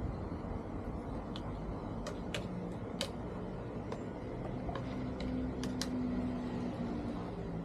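A few sharp, light clicks and taps, scattered irregularly, over a steady low background rumble.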